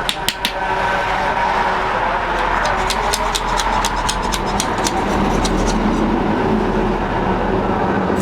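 A workshop machine whirring steadily, with a quick run of light clicks about three seconds in.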